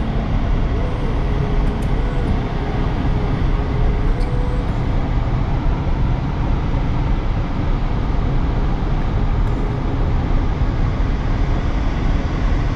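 Steady road noise of a car driving at speed, tyres on asphalt and engine heard from inside the cabin, with a faint whine during the first few seconds.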